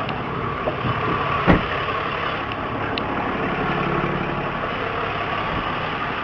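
Tow truck's engine idling steadily, with a single sharp knock about a second and a half in.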